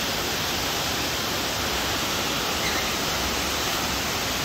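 Steady, even rushing noise with no distinct events, like running water.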